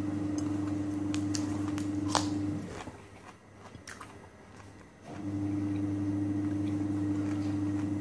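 A few crisp bites into a raw cucumber spear, with chewing, over a steady low hum that drops out for about two seconds in the middle.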